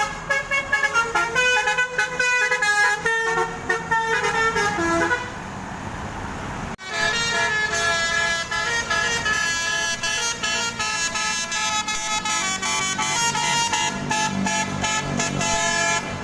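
A bus's multi-trumpet basuri horn (telolet horn) playing a tune of quickly changing notes. The horn breaks off about five seconds in, then starts again a couple of seconds later with several notes held longer together.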